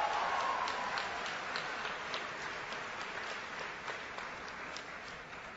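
Audience applauding in a large hall, loudest at first and gradually dying away.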